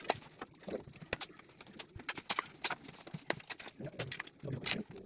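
Irregular sharp clicks and knocks of hand-tool work: a screwdriver and metal fittings tapping and scraping as a carpenter works on the floor, with faint voices in the background.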